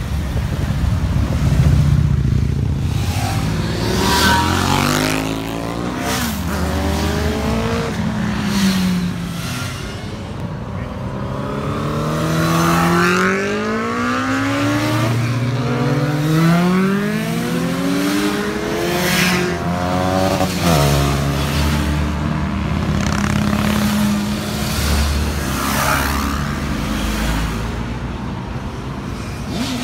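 A steady procession of motorcycles riding past and accelerating, several engine notes overlapping and rising and falling in pitch one after another.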